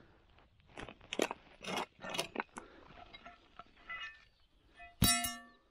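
Shovel and iron scrap crunching and scraping in hard, stony soil, a handful of short strokes. About five seconds in, a loud metallic clang from the rusty iron plate, ringing briefly at several pitches.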